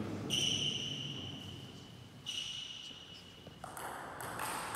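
Table tennis rally: the celluloid-type ball knocks off the rackets and the table several times in quick succession near the end. Before that come two high ringing pings, each fading within a second.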